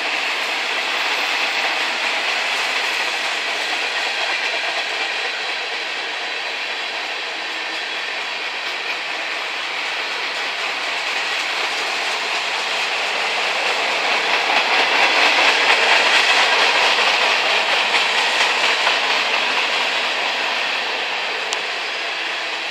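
Freight train cars rolling past: a steady noise of steel wheels running on rail, with a wheel clatter. It grows louder about two-thirds of the way through, then eases.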